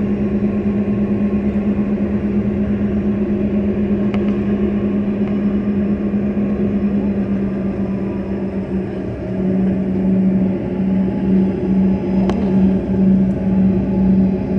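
Jet engine noise heard inside the cabin of a CRJ-200LR regional jet, its rear-mounted GE CF34 turbofans running at low power as the plane moves slowly from the gate. A steady low hum over a rumble starts to pulse about twice a second from about nine seconds in, and grows a little louder.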